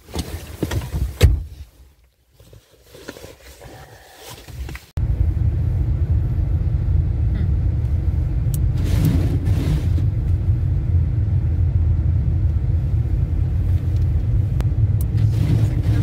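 Car engine heard from inside the cabin: it comes on abruptly about five seconds in and then runs steadily with a low hum. Before that there are scattered handling knocks and rustles.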